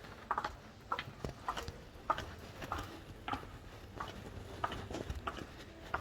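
Footsteps of hard-soled shoes walking on a hard floor: a steady run of sharp clicks, a little under two a second.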